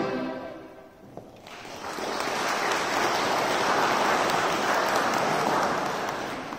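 The last sung note fades out in the first second, then an audience claps in steady applause that dies away near the end.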